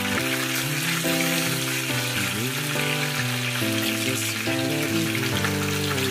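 Background pop music with a melody of held notes changing every half second or so, over a steady hiss.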